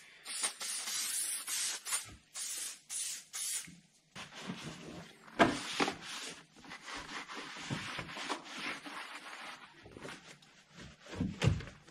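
Aerosol can sprayed over an engine bay in about four short bursts during the first few seconds, then a cloth wiping and rubbing over the plastic engine covers.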